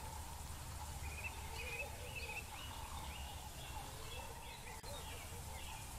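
Birds singing in short, repeated chirping phrases over a low, steady rumble of outdoor ambience.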